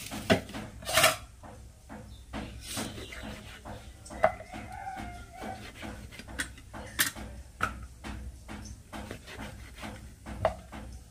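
Vegetable being cut on a boti, a fixed curved kitchen blade: a run of short knocks and scrapes, loudest in the first second. A brief wavering animal call sounds about four seconds in.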